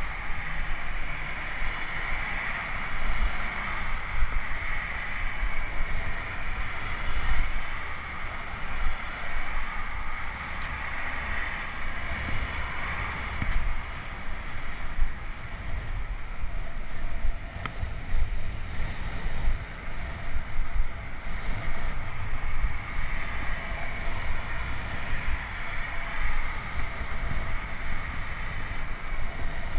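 Wind buffeting a helmet-mounted GoPro's microphone while riding a bicycle, a gusty low rumble over a steady hiss.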